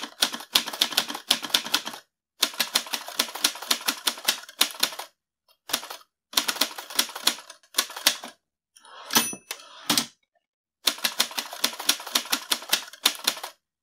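Typewriter keys clacking in quick runs of a second or two with short pauses between them, the typing sound laid under the text cards. About nine seconds in, a short ringing ding and a thump break the runs.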